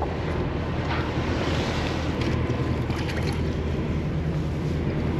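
Steady low engine hum of a party boat, with wind buffeting the microphone and a few light clicks about two to three seconds in.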